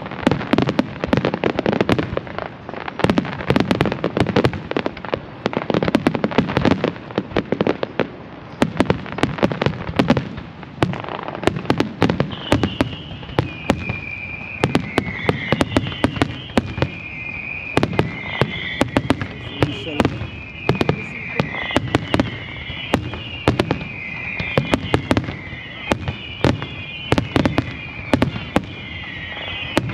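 Fireworks display: many shells bursting in quick, dense succession. From about halfway through, a high, wavering squeal runs on above the bangs.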